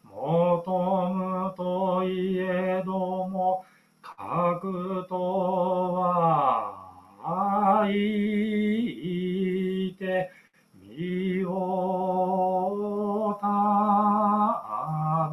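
A solo male voice chanting Tendai shōmyō: a kōshiki passage in Japanese-style text sung to short melodic phrases. He holds long, wavering notes in phrases of about three to four seconds, broken by short breaths, and one phrase slides down in pitch about six seconds in.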